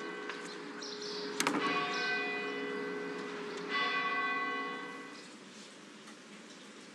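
Church bell tolling: two strikes, each ringing on and slowly fading, with a sharp click just before the first of them.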